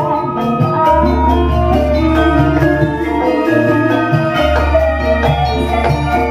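Live Javanese gamelan-style accompaniment with ringing metallophone notes and two long deep bass notes, under a female sinden singing.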